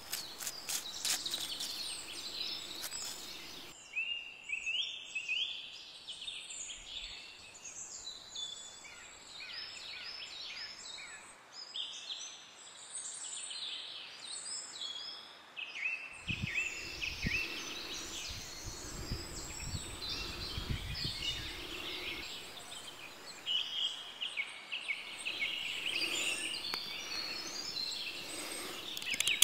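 Small birds chirping and singing throughout, with scattered knocks and rustles of hands handling things from about halfway through.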